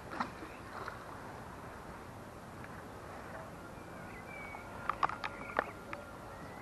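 Steady outdoor hiss with a sharp click just after the start and a quick cluster of small clicks and knocks about five seconds in, from handling a method-feeder fishing rod and reel set on its rod rest.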